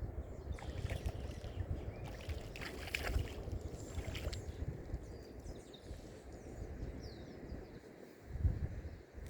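Lakeside outdoor ambience: wind rumbling steadily on the microphone over water lapping, with a few faint, short bird chirps.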